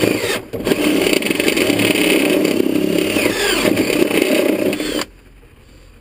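Cordless drill running with a stepped cone bit, cutting a hole: a steady whir that stops abruptly about five seconds in.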